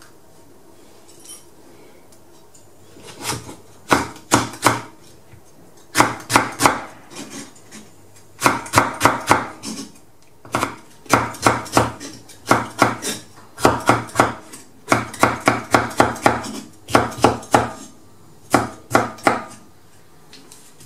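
Chef's knife slicing long green peppers into strips on a wooden cutting board: quick runs of three to five crisp knocks of the blade on the board, with short pauses between runs, starting about three seconds in.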